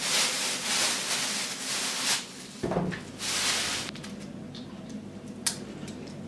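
A thin plastic bag crinkling for about two seconds as fresh ginger root is pulled out of it, with another short rustle a moment later. After that come quieter scrapes and a few light taps of ginger being peeled with a blade on a wooden cutting board.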